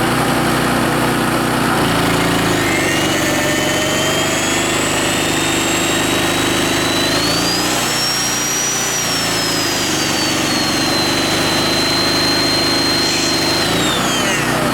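A Coleman 1,750-watt generator's Briggs and Stratton engine runs under a heavy electrical load and bogs down about two seconds in. Over it, a plugged-in electric motor whines, its pitch climbing to a peak midway and then holding lower. Near the end the whine winds down and the engine picks back up as the load comes off.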